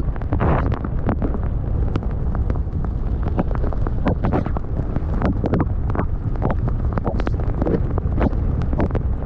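Wind buffeting the microphone during a fast snowboard run, with a steady low rumble. The board hisses and scrapes through the snow in irregular short swishes, several a second.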